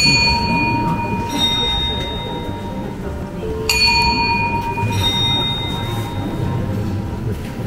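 Bells of the Strasbourg Cathedral astronomical clock striking: a two-note chime, the second note about a second after the first. The pair comes again nearly four seconds in, each note ringing on and fading.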